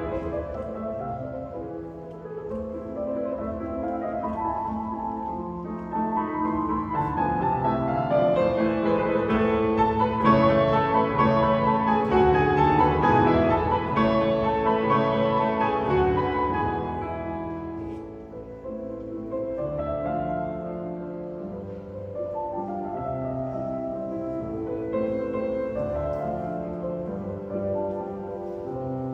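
Piano trio of piano, violin and cello playing a slow classical piece, with the piano leading. The music swells to its loudest in the middle and then softens.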